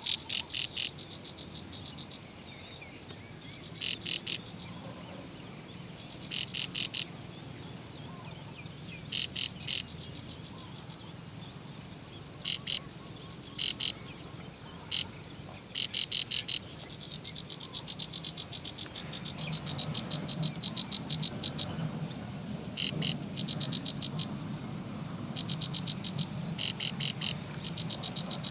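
Animal calls: short trains of rapid, high-pitched pulsed notes repeating every few seconds, running into a near-continuous pulsed trill in the second half over a low steady hum.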